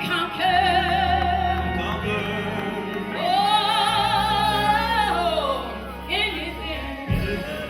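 Music: a singer holding two long notes with vibrato over instrumental accompaniment with a steady bass line.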